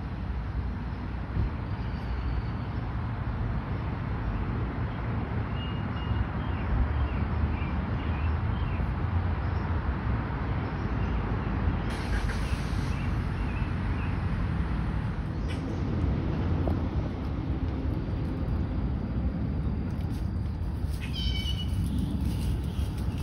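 A cat meowing a few times, the clearest call near the end, over a steady low rumble of background noise.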